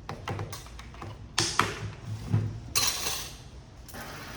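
Objects being handled at a workbench: a run of light clicks and knocks, then a short burst of hiss about three seconds in.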